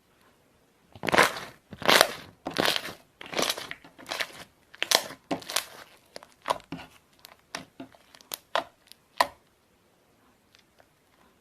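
Slime being squeezed and pressed by hand, a run of wet squishes and sharp pops as air bubbles in it burst, about one or two a second, stopping about nine seconds in.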